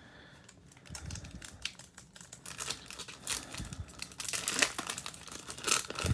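A Topps Chrome trading card pack's foil wrapper crinkling as it is handled and torn open by hand, in irregular crackles that grow denser and louder over the last couple of seconds.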